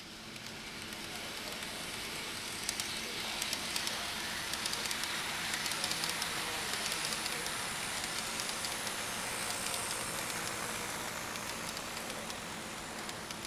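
Kato N-scale E233 Chuo Line model train running past on its track: a steady whirring and rail noise that swells as the cars go by, with many light clicks from the wheels on the track, easing slightly near the end.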